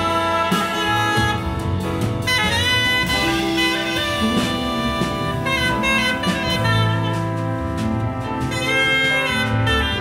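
Big band jazz played live: a tenor saxophone carries a melodic line with bends and slides over the band's brass, piano, double bass and drums with cymbals.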